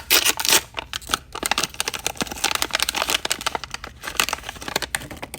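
A toy blind-bag packet crinkling and crackling as it is torn open and handled, with the loudest crackles in the first half-second.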